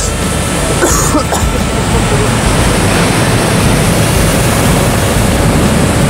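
Niagara Falls at close range: a loud, steady rush of falling water and spray, with a brief sound about a second in.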